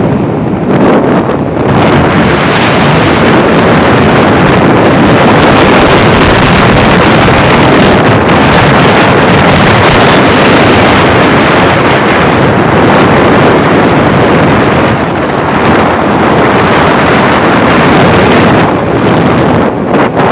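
Wind rushing over the microphone of a moving motorbike, a loud steady roar of wind and road noise, easing off a little near the end.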